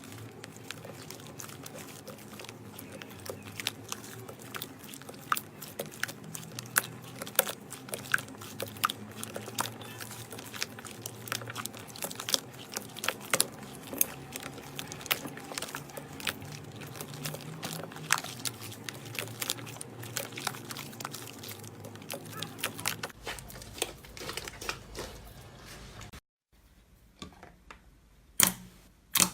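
Slime being squeezed and worked by hand, giving a dense run of small crackling pops and clicks, with a few louder sharp clicks after a short break near the end.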